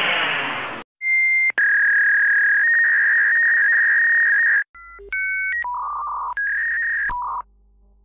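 Electronic cartoon sound effects: a burst of hiss that cuts off, then a steady electronic tone held for about three and a half seconds. After that comes a run of short beeps stepping between pitches, the sound of a cartoon slide machine.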